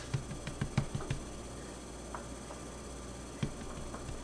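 A hand patting and rubbing tapioca starch over a thin sheet of dough on a work surface: a quick run of soft taps in the first second, then a few single taps.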